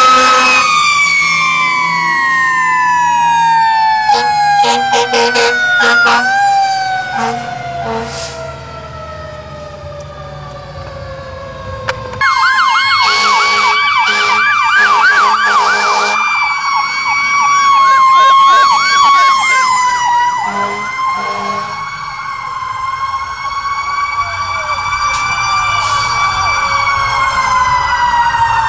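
Fire apparatus sirens passing in a parade. First a mechanical siren winds slowly down in pitch, with short air horn blasts. About twelve seconds in, a second siren comes in with a fast electronic yelp and more horn blasts, over a siren wail that rises and falls slowly.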